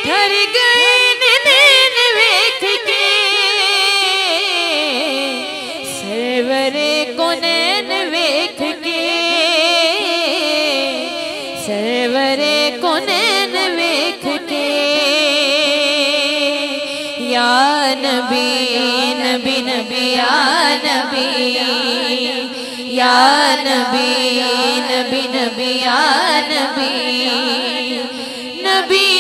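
Musical interlude of a naat with no sung words: a wavering, ornamented melody over a sustained drone. A bit past halfway a steady low drone settles in beneath shorter melodic phrases.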